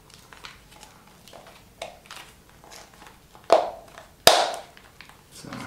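3M Peltor HY80 silicone gel ear cushion being pressed and worked around a ComTac XP ear cup by hand: soft rubbery rustling and small clicks, then two sharp, loud clicks less than a second apart past the middle, the cushion's rim snapping into place on the cup.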